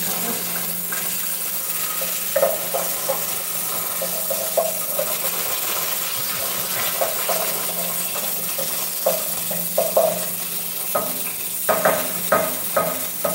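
Garlic, onion and tomato sautéing in a pan: a steady sizzle, with a spoon stirring and clacking against the pan now and then, in a quicker run of knocks near the end. A steady low hum runs underneath.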